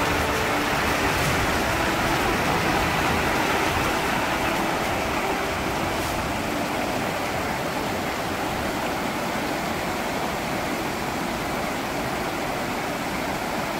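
Steady rushing of an alpine mountain stream and waterfall running among ice-covered boulders, a little quieter from about five seconds in.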